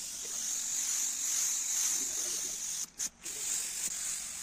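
Gravity-feed paint spray gun hissing steadily as it lays the colour coat onto a car bonnet. The hiss cuts out twice, very briefly, about three seconds in.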